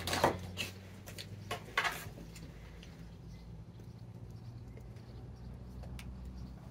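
Plastic packaging crinkling as small enamel pins are handled, in two short bursts in the first two seconds. After that a low steady hum runs under it, with a faint click near the end.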